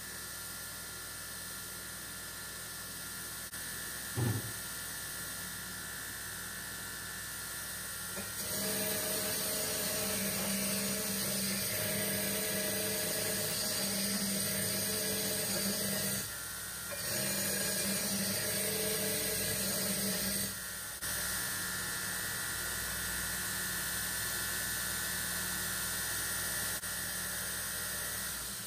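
Homemade 2x72 belt grinder running with a steady motor hum. About eight seconds in, steel is pressed against the moving belt and a louder grinding hiss joins, breaking off twice for a moment. There is a short knock about four seconds in.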